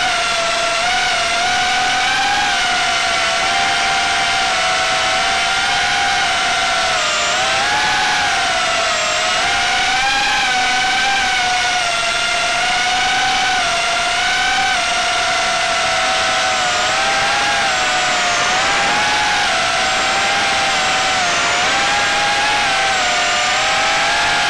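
Electric motors of a small FPV quadcopter, heard close up from its onboard camera: a steady high whine whose pitch wavers up and down with the throttle.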